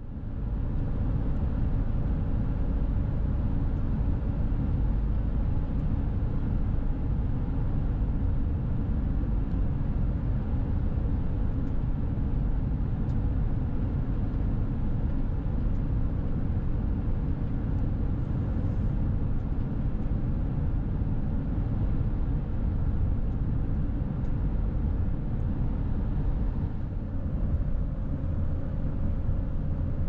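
Steady low rumble of road and engine noise from a vehicle cruising along a highway, with no distinct events.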